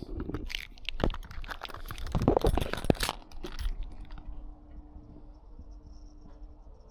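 Close handling noise: a dense run of clicks, knocks and rustles for about three and a half seconds, then it goes quiet with only a faint steady hum.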